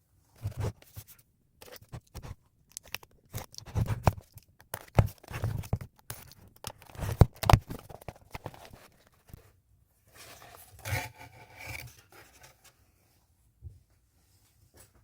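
Packaging being handled and torn open by hand: irregular rustling, crinkling and tearing with small knocks.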